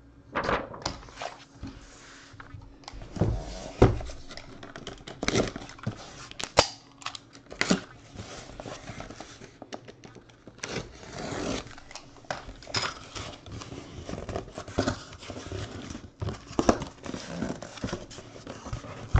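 A sealed cardboard shipping case being cut open and its flaps pulled back by hand: irregular tearing, scraping and rustling of cardboard and tape, with sharp knocks and clicks.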